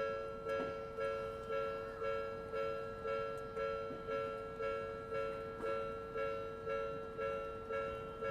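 Railway level-crossing warning alarm, the Odakyu-type electronic bell tone, ringing about twice a second, each strike fading before the next.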